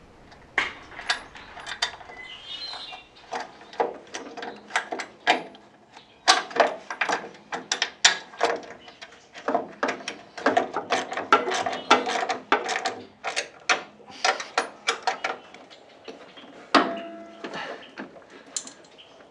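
Irregular metal clicks and clinks from a Series 1 Land Rover's handbrake lever and clevis linkage as they are fitted and worked by hand, with a short metallic ring near the end.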